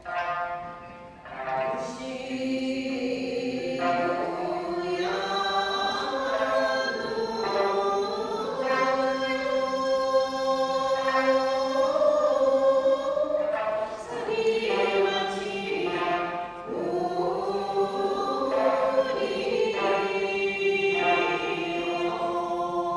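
Group of voices singing a slow folk song together in long, held, gliding notes, accompanied by plucked sanshin, the Okinawan three-stringed lute.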